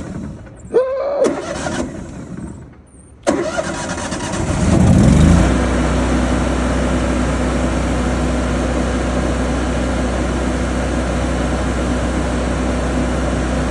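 An engine-driven welding machine's engine being cranked. After a few uneven bursts it catches about three seconds in, revs up briefly, then settles into a steady run.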